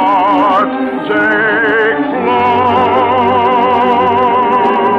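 Orchestral music: a melody with strong vibrato over sustained chords, with a new note about two seconds in that is held to the end.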